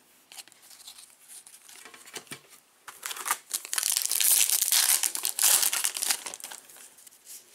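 Foil wrapper of a trading-card pack crinkling loudly as it is torn open and peeled back by hand, starting about three seconds in. Before that, faint clicks of cards being handled and set down.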